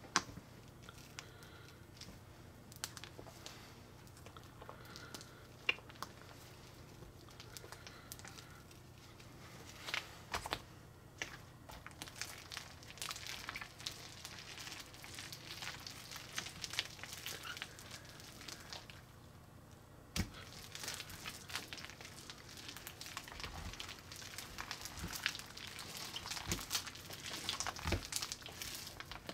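Homemade milk slime being squeezed between the hands and then pressed flat and pulled on a glass plate: soft sticky crackles, clicks and squelches. The crackling gets busier in the second half, after a short pause.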